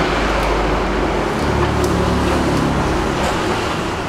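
Loud bass-heavy audio playing through PA speakers, the deep bass note stepping up to a higher one about a second and a half in.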